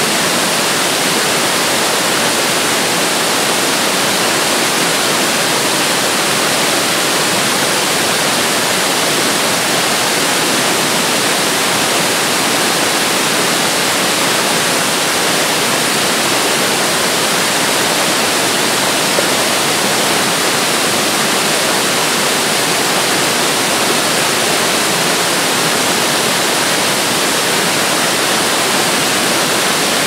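A wide curtain waterfall pours over mossy rock into churning white water below, making a steady, even rush of falling and tumbling water.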